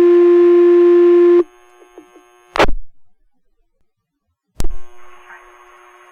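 Fire dispatch radio paging tone: a loud, steady buzzy tone that cuts off about a second and a half in. Then two sharp clicks about two seconds apart as the radio is keyed, and a faint hiss of the open channel.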